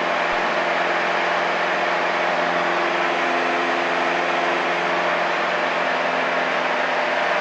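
Piper Archer's four-cylinder engine and propeller droning steadily at constant power, heard inside the cockpit.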